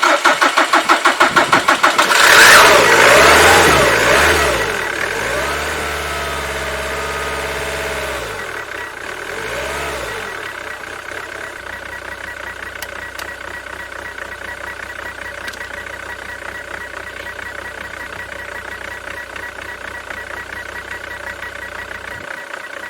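Jaguar X-Type 2.0-litre diesel engine cranking on the starter for about two seconds, then firing on brake cleaner sprayed into the intake and revving up loudly. It surges up and down a few times, then settles to a steady idle about ten seconds in, after a no-start with a low-fuel-pressure fault.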